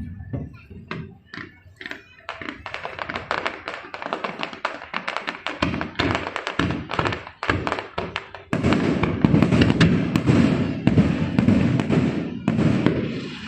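Fireworks going off: a rapid crackle of many small pops that swells about eight and a half seconds in into a loud, dense barrage of heavier bangs and crackling.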